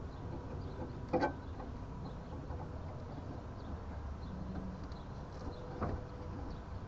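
Two short, sharp knocks about five seconds apart over a low steady hum, the first the louder.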